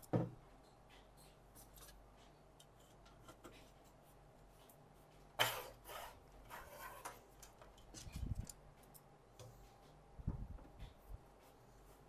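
Handling sounds of computer parts being worked on: scattered small clicks and rubbing, a louder scraping rustle about five seconds in, and two dull thumps near eight and ten seconds.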